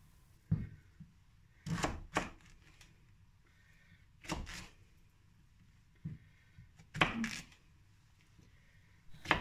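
Kitchen knife slicing through a zucchini, each cut ending in a short knock on the cutting surface; about half a dozen separate, unevenly spaced cuts.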